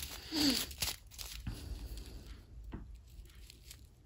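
Small plastic zip-lock bag of square diamond-painting drills crinkling and rustling as it is turned in the fingers, with irregular faint crackles that thin out after about three seconds.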